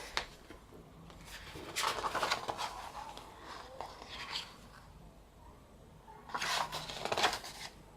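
Paper and card rustling and sliding as album contents are handled, in two short bursts, the second and louder one about six seconds in, with a few small clicks between.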